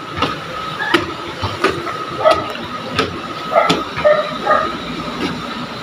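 A dog barking repeatedly in short barks, about one every half second to second.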